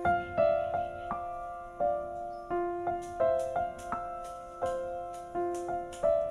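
Background music: a piano melody of single struck notes, about three a second, each ringing out before the next.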